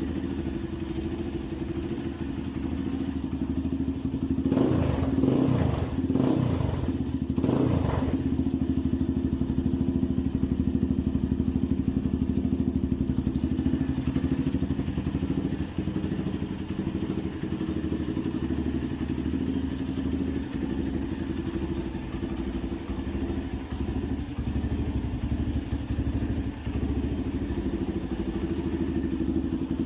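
Yamaha Serow 250's air-cooled single-cylinder four-stroke engine running through a Pro Pipe T-4 carbon-fibre open racing muffler, which makes it a little bit loud. It is revved twice, about five and seven seconds in, and settles back to a steady idle.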